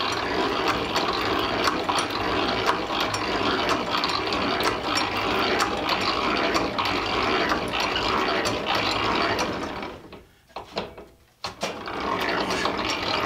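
Antique hand-crank Silver Mfg Co. drill press boring a 3/8-inch hole in steel rail: its gears and feed ratchet clicking steadily as the bit cuts the steel. It stops briefly about ten seconds in, then starts up again.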